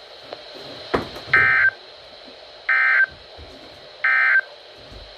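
Emergency Alert System end-of-message data bursts from a weather radio: three identical short, shrill digital warbles, each about a third of a second long and roughly a second apart, marking the end of the broadcast marine warning. A single click comes just before the first burst.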